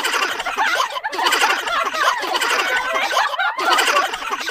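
Several young women laughing hard together, overlapping giggles and snickers, with two brief breaks for breath.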